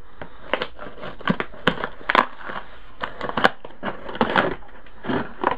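Cardboard shipping box being cut and pried open with a knife: irregular scratching, crackling and tearing of cardboard and packing tape, several strokes a second.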